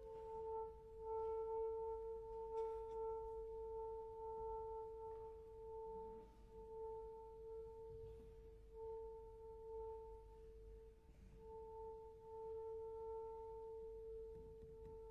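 Soprano saxophone holding one steady, quiet note, briefly broken and re-sounded about three times.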